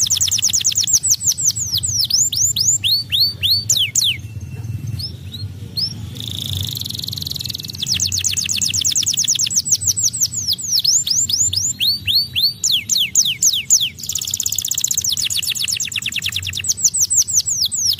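White domestic canary singing a long, loud song of rapid trills and runs of repeated down-slurred whistled notes. It breaks off briefly about four seconds in, then goes into a buzzy phrase before the trills resume.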